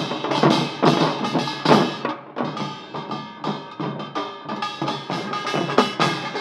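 A Korean traditional music (gukak) ensemble playing, with dense, driving drum strikes over sustained melodic notes.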